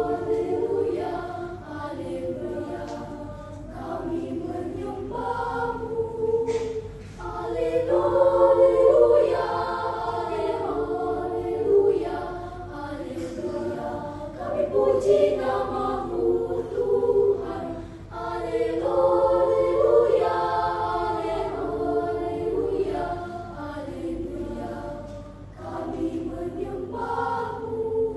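A choir singing a cappella in several voice parts, in sustained phrases that swell and ease off.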